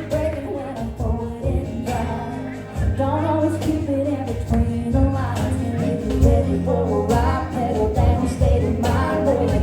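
Live country band playing, with singing over it.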